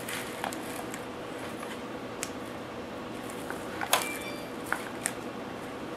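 Plastic spiral wrap being wound by hand around a bundle of thin wires: light rustling with a few small clicks, the sharpest about four seconds in.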